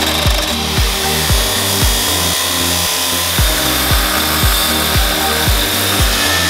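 Angle grinder cutting through rusty steel, a steady high whine and hiss, under background music with a steady beat of about two kicks a second.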